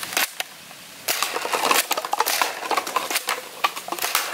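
A Nerf Dual-Strike foam-dart blaster being fired at a stack of plastic cups. From about a second in there is a rapid, irregular clatter of light plastic knocks as cups are hit and tumble down.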